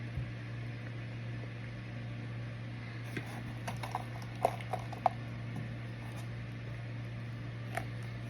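Microwave oven running with a steady low hum, with a handful of small sharp clicks about three to five seconds in and once more near the end.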